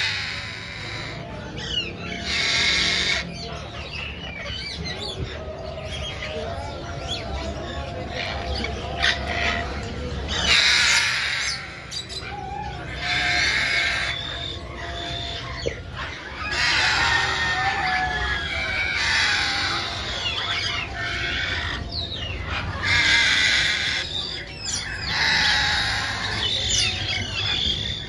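Caged parrots and ring-necked parakeets calling. Loud, harsh bursts of screeching come every few seconds over continuous bird chatter.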